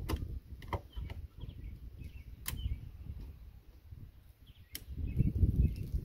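Metal clicks and knocks of locking pliers being clamped and worked on a seized, rusted RV storage-bin lock. There are about half a dozen sharp clicks, the strongest about two and a half seconds in and just before five seconds, over a low rumbling noise that swells near the end.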